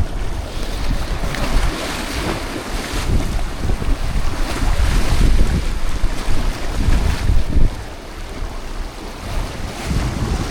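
Wind buffeting the microphone in gusts over the wash of sea waves.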